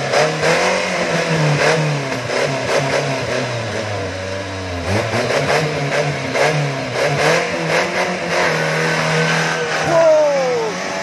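Off-road 4x4's engine revving hard under load, its pitch rising and falling over and over as the throttle is worked to climb out of a muddy rut. A short high-pitched falling sound rises above it near the end.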